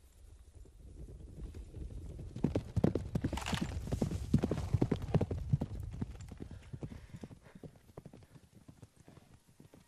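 A horse galloping through wheat: hoofbeats grow louder from about two seconds in, are loudest around the middle, then fade away as it passes.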